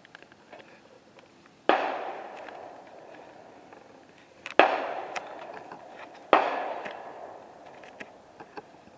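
Three gunshots at an outdoor range, the second about three seconds after the first and the third close behind it. Each one cracks and then echoes away over about a second.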